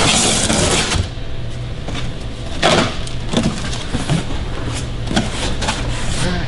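A large cardboard shipping box being opened: packing tape is cut open along the top in the first second, then the cardboard flaps are pulled back and the packing inside rustles, with a few sharp knocks.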